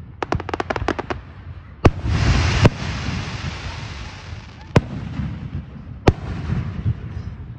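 Aerial fireworks display: a rapid string of about ten sharp cracks in the first second, then a loud shell burst about two seconds in followed by a dense hissing crackle and another bang, and two more single bangs later, with rumbling between them.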